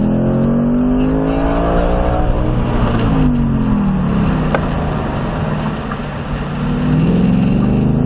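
2021 Ford Mustang Mach 1's 5.0-litre V8 under hard driving: the engine note climbs under acceleration for the first couple of seconds, then drops away about three seconds in as the car slows. It climbs again near the end.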